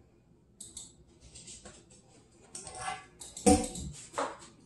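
Handling noises on a kitchen countertop: a cloth rustling and a metal wrench clicking and clinking against the counter, with one sharper knock about three and a half seconds in.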